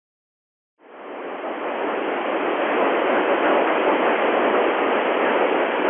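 FM radio receiver hiss: open-squelch noise from a transceiver tuned to the 435.889 MHz satellite downlink, with no signal on the channel. It fades in about a second in and then holds steady.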